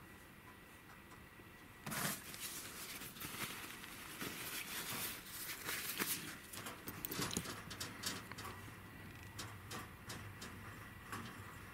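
Rustling and light clicks as a chinchilla's fur is handled and groomed, busiest for several seconds in the middle.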